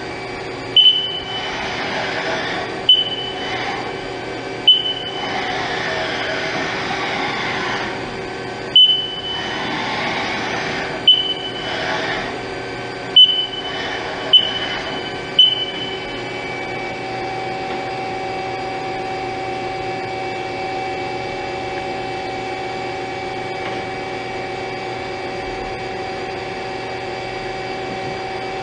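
Haas SL-40T CNC lathe running with a steady hum, broken over the first half by eight short sharp clicks, each with a brief high ring. From about halfway a steady whine sets in.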